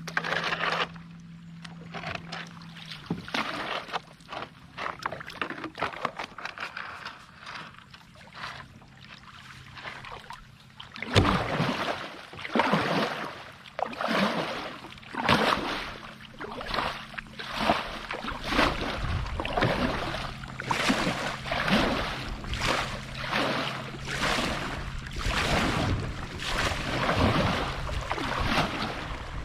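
Kayak paddle strokes dipping and swishing through the water. Quiet sloshing and small knocks at first, then about a third of the way in a steady paddling rhythm starts, roughly one splash a second.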